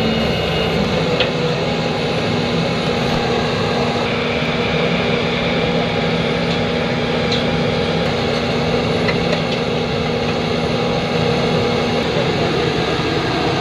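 Heavy truck engine idling steadily, a constant low hum.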